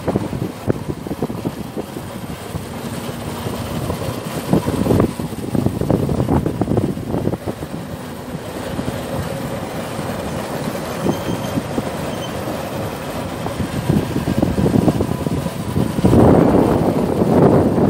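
A two-wheeler running along the road, its engine mixed with wind rumbling on the microphone in irregular gusts, getting louder near the end.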